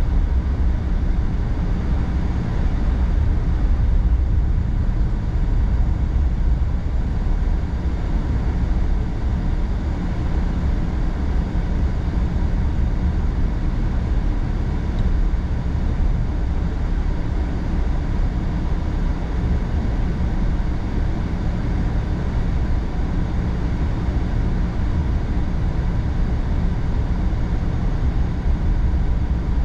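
A steady, deep rumble, loudest in the bass, with no change throughout.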